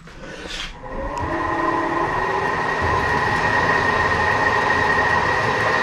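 Burke Millrite MVN vertical knee mill's spindle starting up and then running steadily with a high whine, freshly greased with its spindle bearings just adjusted. It sounds a lot smoother.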